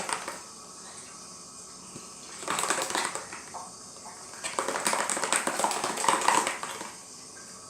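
A mixing tool stirring a thick, jiggly mixture of two liquid soaps fast in a container. The stirring comes in three spells of rapid clicking strokes with short quiet pauses between them, as the soap thickens toward slime.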